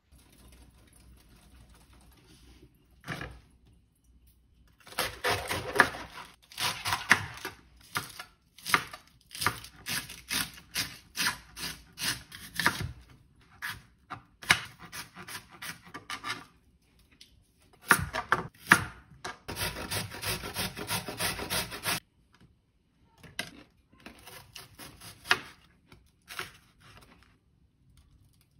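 Kitchen knife chopping against a plastic cutting board, cutting an apple into thin strips. The strokes come in quick runs of several a second, with short pauses between the runs.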